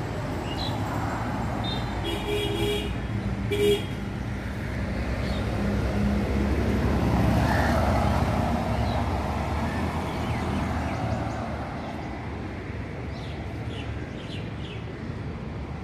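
Road traffic rumbling steadily, growing louder near the middle. A vehicle horn toots twice, briefly, a couple of seconds in.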